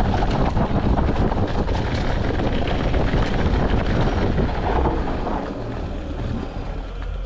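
Wind buffeting an action-camera microphone during a mountain-bike ride: a loud, steady rumble with small clicks and rattles, easing a little after about five seconds.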